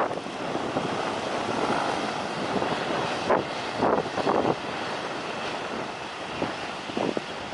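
A steady rushing aircraft engine noise with wind buffeting the microphone in gusts, loudest a little over three seconds in, around four seconds, and near the end.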